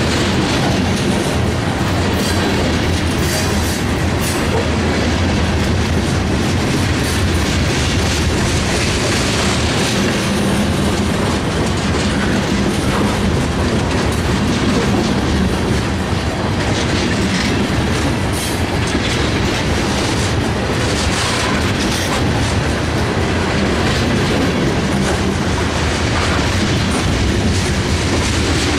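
Freight train cars rolling steadily past: tank cars and then autorack cars, a constant rumble with wheels clicking irregularly on the rails.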